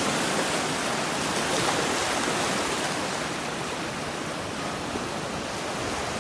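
Sea surf breaking and washing up a sandy beach, a steady rush of noise that eases off slightly about halfway through.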